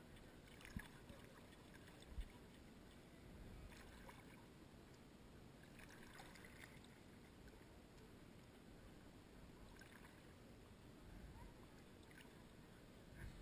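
Near silence: faint water lapping and gurgling at the surface around the camera, with two soft knocks in the first few seconds.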